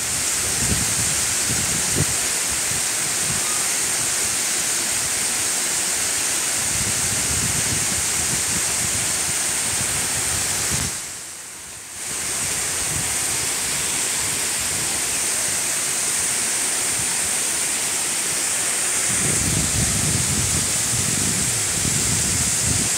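Steady rushing hiss of waterfalls pouring over granite ledges into a rock pool. Gusts of wind buffet the microphone now and then, and the whole sound drops away briefly about eleven seconds in.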